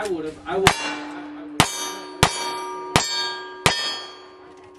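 Five gunshots in a quick string, roughly 0.7 s apart, each answered at once by the ring of a struck steel target. The rings overlap and die away after the last shot.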